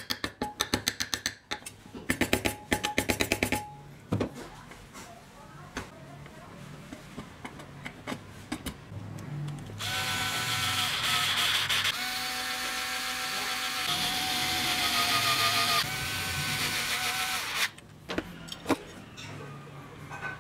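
Rapid hammer taps through a wooden block, about seven a second in two short runs, seating the motor's armature and bearing. Near the middle an electric screwdriver runs for about eight seconds, its whine dropping in pitch each time a screw into the gear housing tightens, then stops abruptly.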